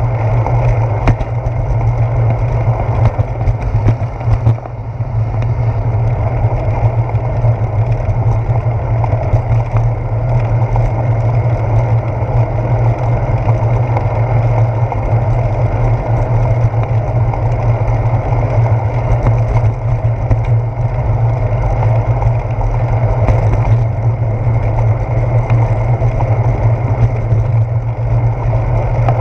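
Steady, loud rumble of a bicycle rolling along a paved path, tyre and road vibration and wind picked up through a handlebar-mounted GoPro Hero 4 in its housing.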